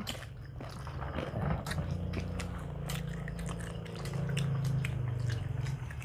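Close-miked chewing and biting of food, most likely tortilla-chip nachos, with many small crisp clicks and crunches. A low steady hum runs underneath.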